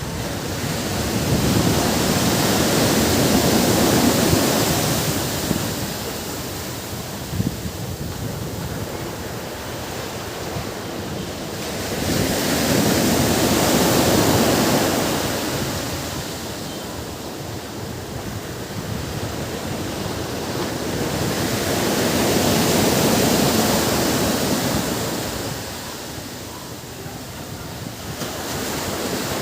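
Ocean surf: waves breaking and washing up the beach, swelling and falling back three times at intervals of about nine to ten seconds.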